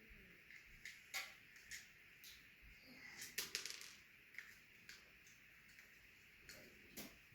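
Scattered light clicks and taps of small plastic kit pieces and screws being handled, with a quick cluster of clicks about three and a half seconds in.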